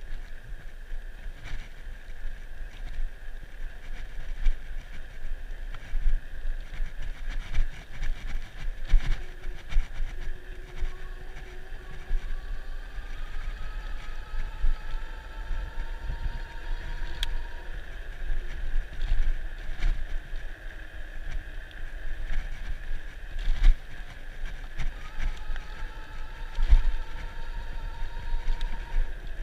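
Rad Runner Plus electric bike riding along with its geared rear hub motor humming, while wind rumbles and gusts on the microphone. The motor's whine slowly rises in pitch as the bike speeds up, once around the middle and again near the end.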